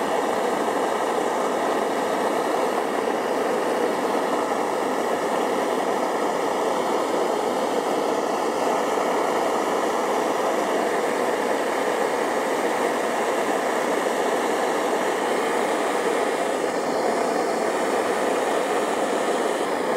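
Bernzomatic propane torch flame burning with a steady hiss as it heats a copper pipe joint to flow solder, freshly fluxed with paste after the solder did not flow well.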